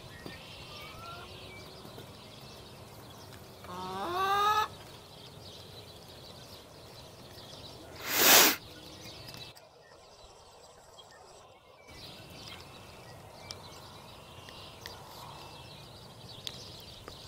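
A peafowl gives one loud call, about a second long, that rises in pitch, about four seconds in. About four seconds later there is a brief, even louder rush of hiss-like noise.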